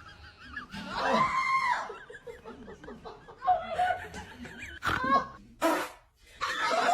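People laughing and snickering in short separate bursts.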